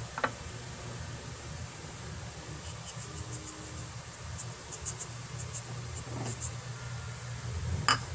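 Brown sugar being tipped from a small bowl into coconut milk in a non-stick pan: a steady low hum throughout, with faint ticks around the middle and a sharp click just after the start and another, louder, just before the end.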